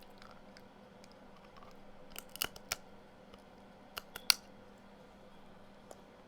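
Scissors snipping and cracking through the hard shell of shellfish legs: a few sharp clicks about two seconds in, then another short cluster about four seconds in, the last the loudest.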